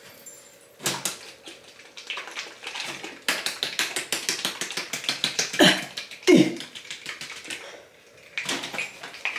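Plastic hair-dye applicator bottle being shaken to mix the colour, with fast clicking rattles coming in bursts, thickest in the middle and again near the end, and two short falling sounds around the middle.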